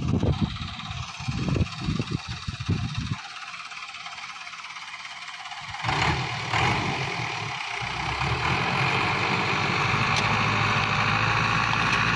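Ford 5880 tractor's diesel engine working under load while dragging a tree with its rear implement. An uneven low rumble comes in the first three seconds, then a louder, steadier engine note sets in from about six seconds in.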